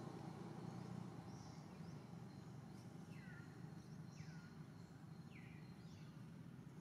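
Faint outdoor ambience: a steady low hum of background noise with a few faint bird chirps, three falling calls about a second apart in the middle.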